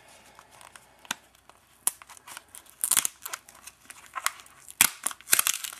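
Plastic card-pack wrapper and tape being picked at and torn open by hand: scattered sharp crinkles and crackles at irregular moments, sparse at first and busier in the second half.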